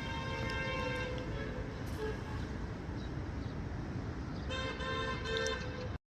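A vehicle horn sounds twice, each a steady note about a second long, over steady urban background noise.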